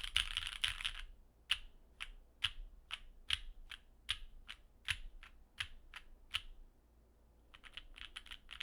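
Custom mechanical keyboard typing: a Sneakbox AVA with an aluminum plate, lubed Autumn Rain 'Speechless' switches and GMK keycaps. A quick flurry of keystrokes, then single keys pressed one at a time about two or three a second, a short pause, and fast typing again near the end.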